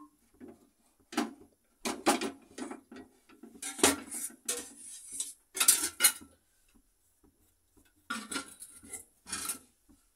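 Steel kitchen utensils clinking and clattering as bowls, lids and spoons are handled, in several short bursts with pauses between them.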